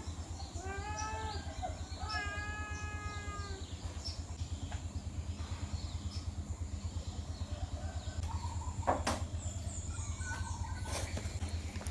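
An animal calling twice in drawn-out, pitched cries, the second one longer and steadier, over a steady low hum. Faint short chirps follow later, with a single sharp click about nine seconds in.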